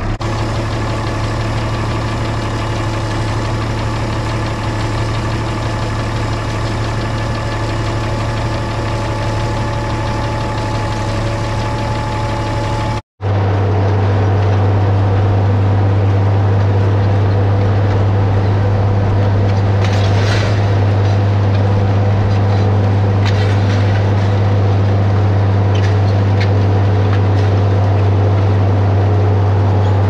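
International 1256 tractor's diesel engine idling steadily as it warms up. About 13 seconds in, after a brief break, it runs louder and steady under load, pulling a disc through the field.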